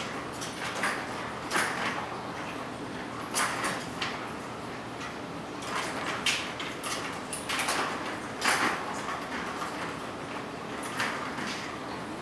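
Ball rolling and rattling around the plastic channel of a Bergan Turbo Track cat toy in irregular spurts as a cat bats it along.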